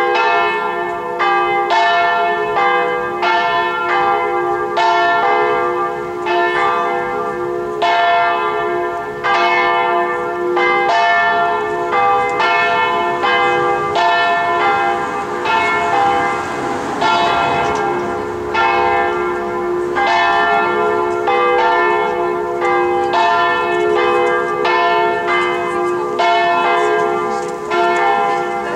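Church bells in the lantern tower of Marmorkirken (the Marble Church) ringing a continuous peal. Overlapping strikes come about two a second, each ringing on over a steady hum.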